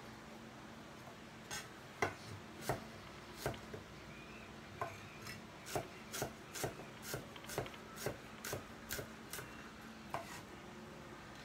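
Cleaver chopping food on a wooden cutting board: a run of sharp knocks, scattered at first, then about two a second, with the last one about ten seconds in.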